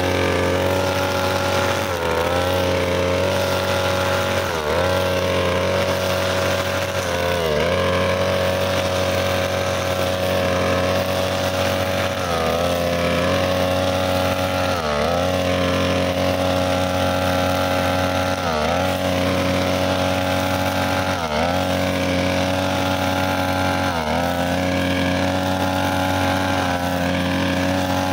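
43cc two-stroke brushcutter running at high revs with a 2.8 mm nylon trimmer line cutting short grass. The engine pitch dips briefly and recovers about every two to three seconds.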